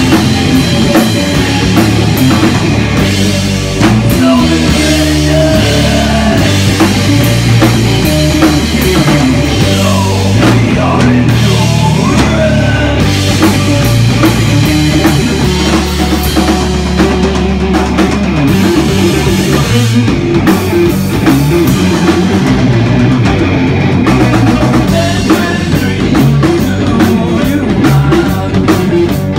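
Live rock band playing loudly: electric guitar over a drum kit, with no vocals in this stretch.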